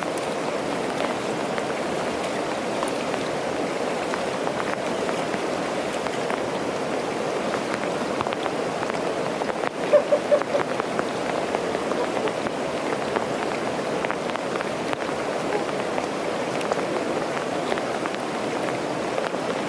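Steady rain falling: a constant hiss scattered with many small drop taps. About halfway through come a few louder short knocks.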